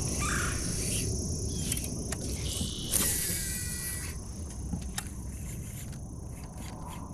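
Insects droning steadily, high-pitched, over a continuous low rumble, with a few light clicks and a brief chirping call about three seconds in.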